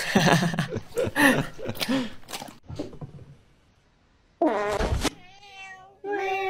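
Domestic cat meowing twice: a short, loud meow about four and a half seconds in, then a longer, steady meow near the end. Before the meows there is a voice.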